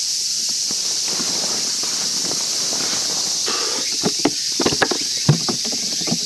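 Steady high-pitched chorus of cicadas. About four seconds in, a handful of sharp clicks and knocks: the latches of a YETI hard cooler being undone and its lid lifted open.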